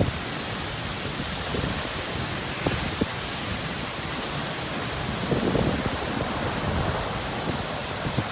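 Typhoon rain and wind: a steady hiss of heavy rain, with a gust of wind swelling about five seconds in.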